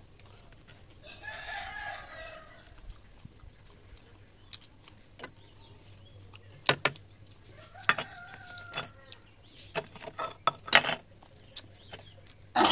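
Domestic chickens calling, with one call about a second long starting about a second in and a shorter one near eight seconds. Several sharp clicks and knocks in the second half, the loudest sounds, from hand-eating and handling a steel bowl on a leaf plate.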